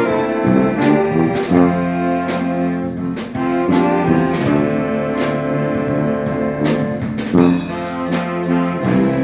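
Dweilorkest brass band playing: trumpets, trombones and saxophones holding sustained chords over drum and cymbal strokes that fall at a regular beat.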